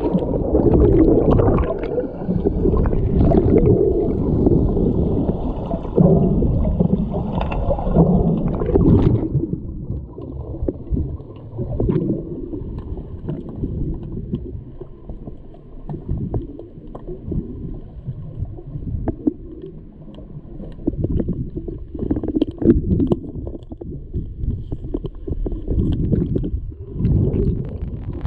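Muffled underwater pool noise from players churning the water in an underwater hockey game: a dense rumble with bubbling and many small knocks. After about nine seconds it turns duller and deeper.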